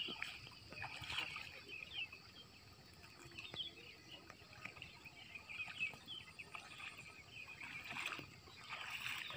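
Scattered bird chirps over open water, with light sloshing of a person wading through shallow, muddy lake water.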